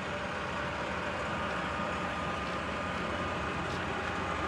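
Steady low hum of running machinery, with a faint steady high whine and loudness creeping up slightly.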